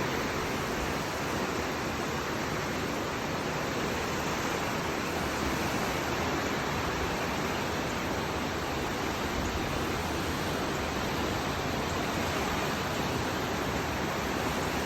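The San Gabriel River in flood, its water rushing in a steady, unbroken noise.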